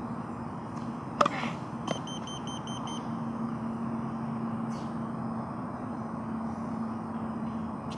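Two sharp knocks of a served tennis ball, struck and bouncing, followed at once by the IN/OUT tennis line-calling device beeping rapidly, about six short high beeps in under a second, its signal for an out or close call.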